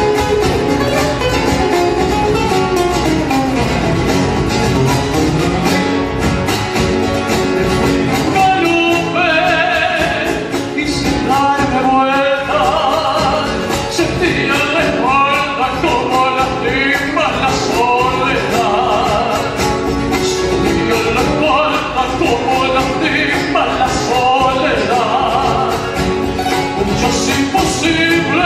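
Folk song with guitar accompaniment; a singer comes in about nine seconds in, holding notes with a wavering vibrato.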